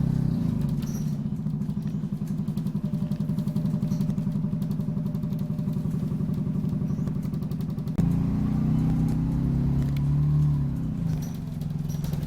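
Optare Solo single-deck bus's diesel engine running under way, with a steady engine note. The sound steps up abruptly about eight seconds in, and near eleven seconds the engine note falls in pitch and level.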